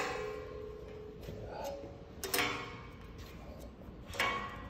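Three light knocks of metal on steel, a couple of seconds apart. The first leaves a clear ringing tone that lasts about two seconds.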